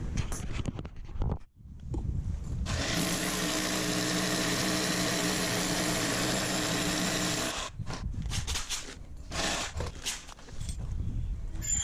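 Power drill running steadily for about five seconds while a garage door lock is being fitted, with handling clicks and knocks of tools and lock parts before and after.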